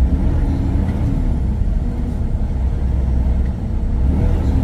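Freightliner Cascadia semi-truck's diesel engine and drivetrain heard from inside the cab while driving downhill: a steady low rumble.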